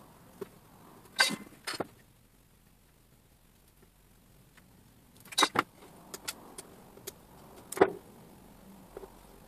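Small tools and electronic parts being picked up and set down on a wooden desk: scattered clicks and knocks, with louder knocks about a second in, halfway through, and near the end.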